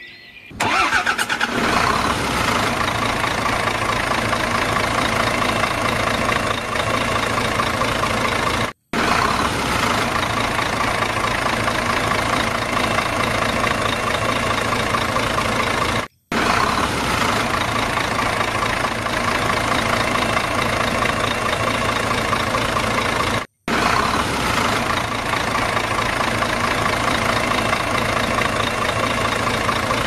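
Engine sound effect laid over the toy, starting abruptly and then running steadily, repeated as a loop with a brief cut to silence about every seven and a half seconds.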